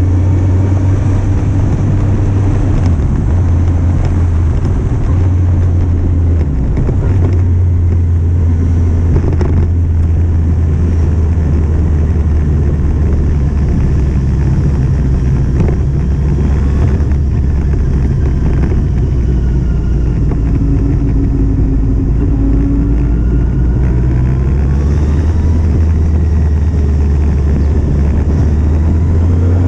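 2008 Kawasaki Z750's inline-four engine running while the bike is ridden, its note stepping up and down in pitch a few times as the throttle and gears change.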